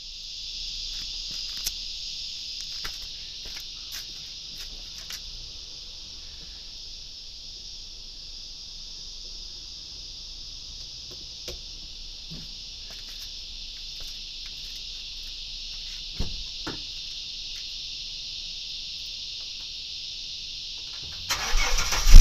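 Steady high chirring of insects throughout, with scattered light clicks and knocks as cable plugs are handled. About a second before the end, a sudden loud low rumble breaks in.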